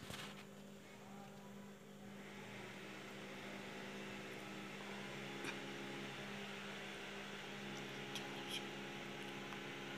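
Steady low electrical hum with a faint hiss that swells about two seconds in, and a few faint clicks in the second half.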